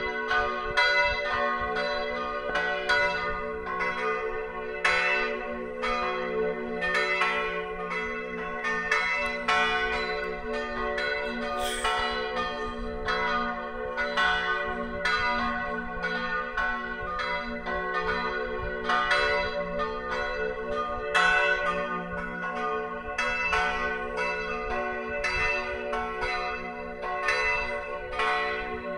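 Full peal of three swinging church bells tuned F-sharp, B and D-sharp, cast in 1582 by Hans Christoph Löffler, in 1604 by Heinrich Reinhart and in 1947 by Oberascher. They strike in a continual irregular sequence, about one and a half strokes a second, and their tones ring on and overlap between strokes.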